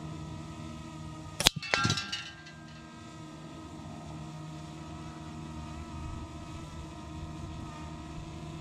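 A pellet from a break-barrel air rifle strikes a steel aerosol can with one sharp crack about a second and a half in. The can is knocked over and clatters briefly with a short metallic ring.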